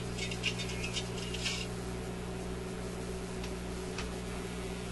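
Electrohome 652 suitcase record player running with a steady low hum. A rapid run of small clicks in the first second and a half as its speed control is switched to a slower speed, then one sharp click about four seconds in.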